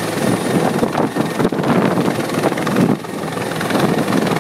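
CH-146 Griffon military helicopter hovering low overhead, its rotor and turbine engines running loud and steady, with a brief dip in level about three seconds in.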